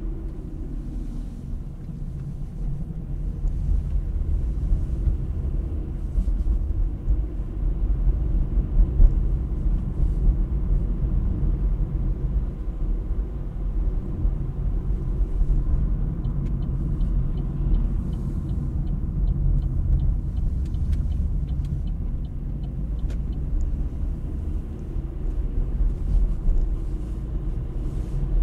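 A car driving, with a steady low rumble of engine and road noise. For several seconds past the middle, a run of quick, evenly spaced ticks sounds over it.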